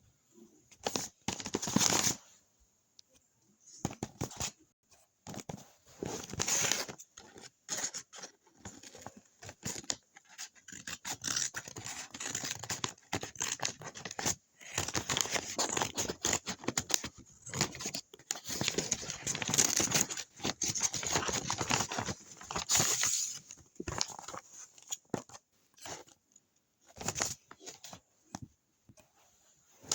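Paper being handled: irregular bursts of crinkling and rustling, with tearing and scratching sounds.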